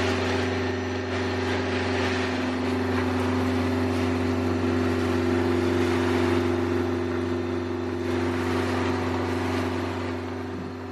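Sailboat's inboard diesel engine running at a steady speed under motor-sail: an even low drone over a broad rush of wind and water noise, easing off near the end.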